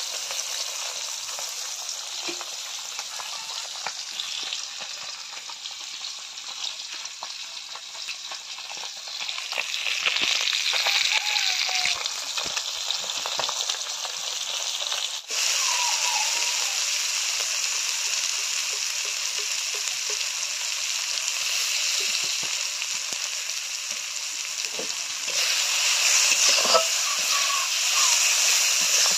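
Small bata fish shallow-frying in hot oil in a kadai, a steady sizzle. The sound breaks off abruptly about halfway and the sizzling carries on. Near the end it grows louder as sliced onions fry and are stirred with a spatula.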